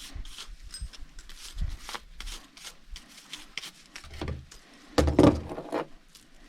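Repeated short scraping and rubbing strokes as sawdust and debris are cleaned off a chainsaw, with a louder clattering knock about five seconds in.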